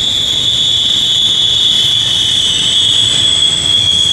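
Train wheels squealing: a loud, steady, high-pitched flange squeal over the low rumble of rolling railcars. This is the sign of wheel flanges grinding against the rail on curved track.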